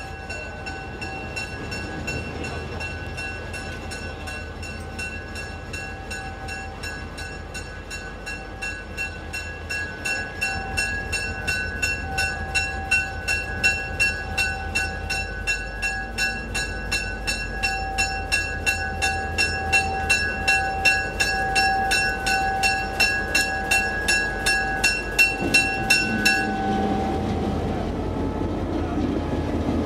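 A warning bell rings in a fast, even rhythm of about three strikes a second and cuts off suddenly about 26 seconds in. Under it runs the low engine of TRA R100-class diesel-electric locomotive R123 moving at walking pace, which grows louder near the end as the locomotive passes close by.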